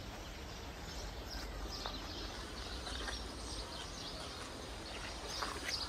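Faint, scattered bird chirps over a steady low outdoor background hum.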